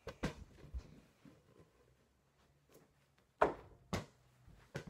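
A handful of dull thumps from a ball thrown at an over-the-door mini basketball hoop, striking the door and backboard and bouncing. The loudest thump comes about three and a half seconds in, with another half a second later.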